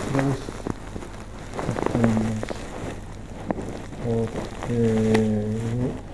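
Scattered light taps and clicks on a smartphone being handled. Between them a man's voice hums in drawn-out, steady low tones several times, the longest near the end.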